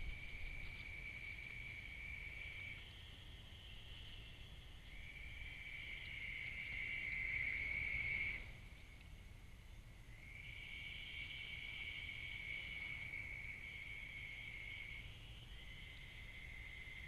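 A night chorus of long, high, steady trills, each lasting several seconds with short breaks between them, two callers at times overlapping. Under it runs the steady low rumble of the trail camera's microphone.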